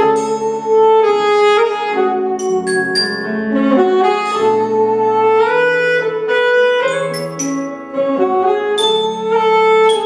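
Saxophone playing a melody over a mallet-percussion ensemble: marimba and glockenspiel, with bright struck glockenspiel notes ringing out above it.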